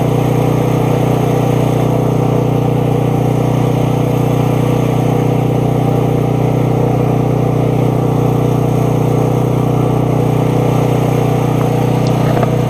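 13-horsepower engine of a high-pressure washer running steadily at constant speed, an even, unbroken hum.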